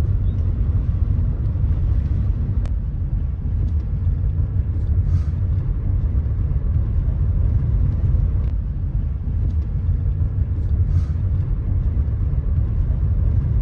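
Steady low rumble of a car driving, with its engine and road noise heard from inside the moving vehicle.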